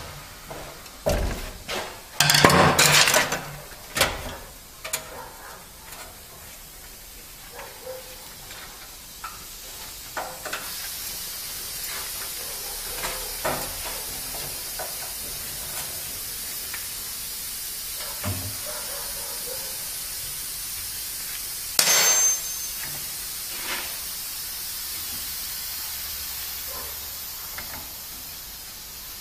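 Metal clanks and knocks from handling the parts of a bench drill press, with a burst of loud clatter in the first few seconds. A steady hiss sets in about a third of the way through, and there is one sharp ringing metallic knock about three-quarters of the way in.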